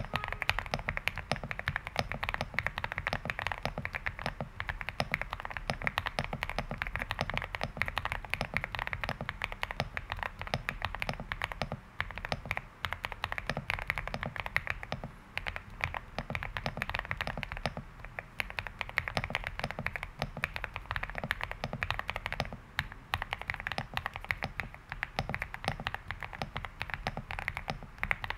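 Continuous fast typing on a Weikav D75 aluminium mechanical keyboard with Cherry-profile Piifox Natra keycaps, with a few short pauses. The keystrokes make a dense, deep sound rather than a clacky one.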